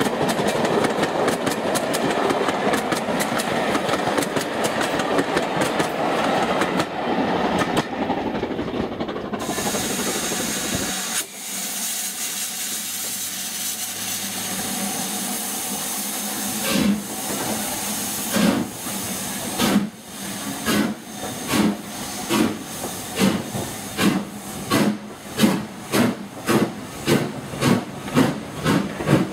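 A train's coaches running past on the rails with a steady rumble, then a cut to a standing LMS Jubilee 4-6-0 steam locomotive, 45699 Galatea, hissing steam. It then starts away with exhaust chuffs that quicken to about two a second.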